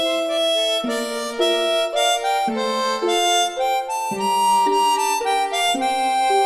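Background music: a reedy wind-instrument melody over sustained chords, the notes changing about every half second.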